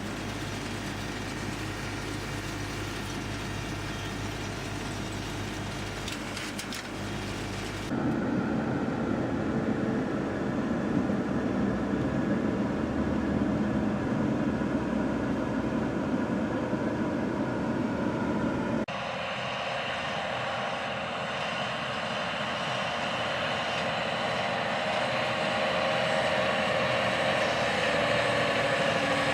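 Farm machinery engines and mechanisms running steadily in three separate clips, the sound changing abruptly about 8 and 19 seconds in.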